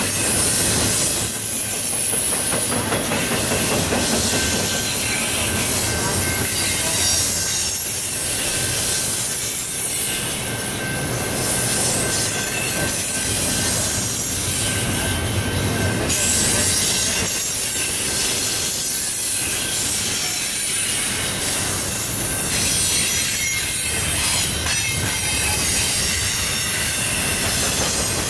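Double-stack intermodal container cars rolling past at close range: a steady rumble of steel wheels on rail with a thin, high wheel squeal held over it.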